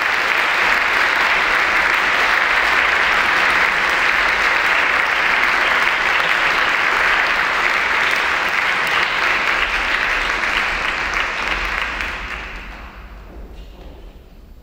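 Audience applauding, steady and then dying away over the last two or three seconds.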